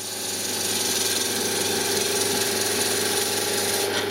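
Wood lathe spinning a small wooden workpiece while a skew chisel cuts it: a steady cutting hiss over the hum of the lathe's motor.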